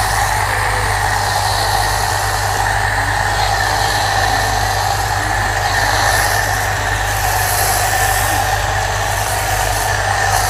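Pressure washer's electric motor and pump humming steadily while a foam lance sprays car-wash shampoo foam in a loud continuous hiss.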